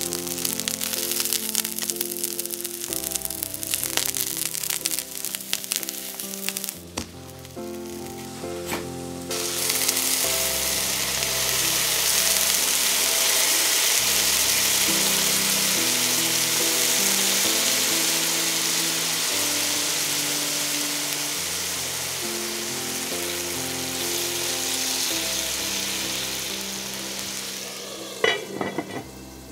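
Aubergine chunks frying in oil in a hot cast-iron skillet, crackling and spitting, then a loud steady sizzle from about ten seconds in as soy sauce hits the pan. Near the end a lid is set on the skillet with a few clinks.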